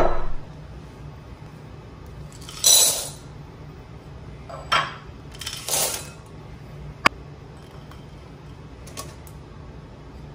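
Dark chocolate pieces poured from a small ceramic bowl rattle into a glass mixing bowl in three short pours, the first the loudest, followed by one sharp clink of bowl against glass.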